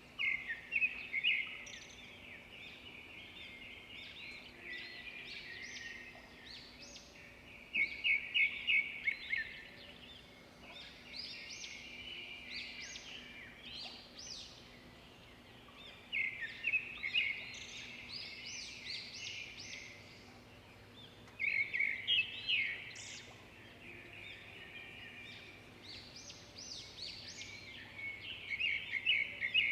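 Songbirds singing: bursts of rapid, repeated high notes every several seconds, with quieter calls in between, over a faint steady background.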